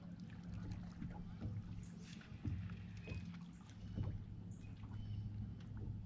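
A bass boat sitting on the water, with a steady low hum and water lapping at the hull, broken by scattered light clicks and knocks.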